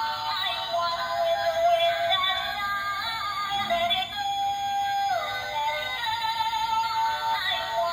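Music carried by a high, synthetic-sounding sung melody that steps and glides in pitch.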